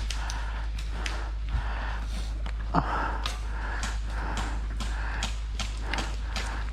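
A person breathing hard close to the microphone, quick rhythmic breaths with scattered small clicks and knocks of gear.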